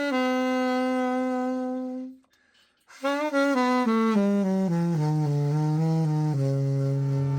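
Burden V-45 alto saxophone being played: one held note that stops about two seconds in, a short break, then a phrase stepping down note by note to a long low note near the bottom of the horn's range.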